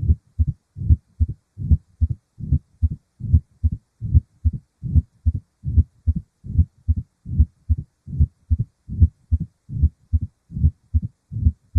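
Human heart sounds: a steady, regular beat of low paired thumps with a low-pitched rumbling murmur in diastole, the mid-diastolic murmur of rheumatic mitral stenosis.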